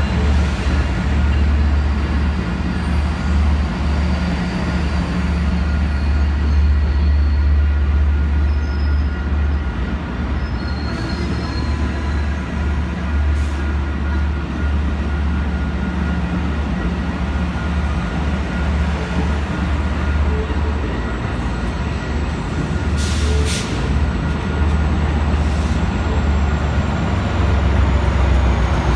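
Amtrak passenger coaches rolling slowly past: a steady low rumble of wheels on rail with faint high squealing tones. Near the end the rumble swells as the F59PHI diesel locomotive pushing at the rear comes alongside.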